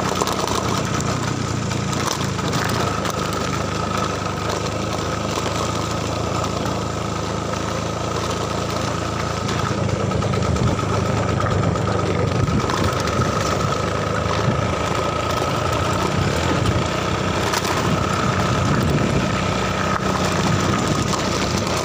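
A small vehicle's engine running steadily while travelling along a rough dirt road, with road and wind noise and a steady high whine above the engine note.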